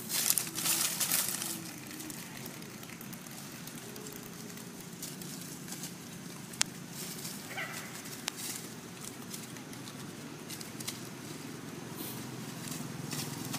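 Dry fallen leaves rustling and crackling for the first couple of seconds as macaques move over them. After that, a steady low outdoor background with one sharp click about halfway through.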